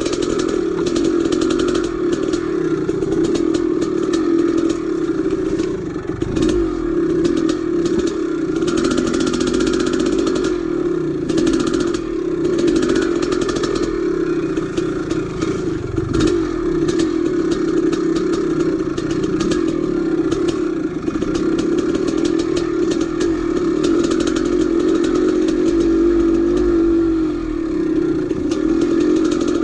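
A 1983 Maico 490's two-stroke single-cylinder engine running under load as the dirt bike is ridden along a trail, its pitch rising and falling with the throttle. Frequent knocks and rattles come through over the engine.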